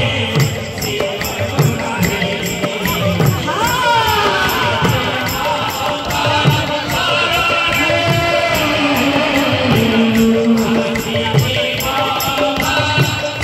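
Odia devotional kirtan music. Double-headed barrel drums are hand-beaten in a quick rhythm under an even, jingling metallic beat, while a singer chants a devotional song with gliding pitch.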